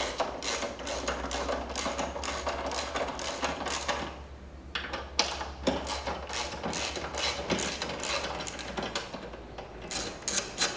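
Socket ratchet clicking in quick runs as the scooter's rack mounting bolts are backed out, with a short pause about four seconds in before the clicking resumes.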